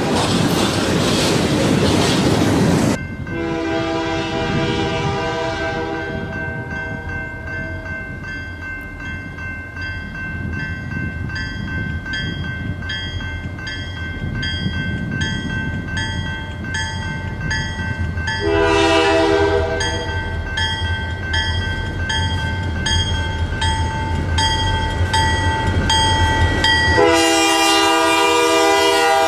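Locomotive sounding a Nathan K3-series five-chime air horn (K3H/K3L): a long blast cuts off about three seconds in, a short blast comes about two-thirds of the way through, and another long blast starts near the end. Between the blasts a train rumbles past with wheel clatter.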